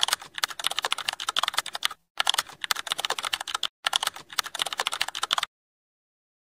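Keyboard typing sound effect: rapid key clicks in three runs separated by two short breaks, stopping about a second before the end.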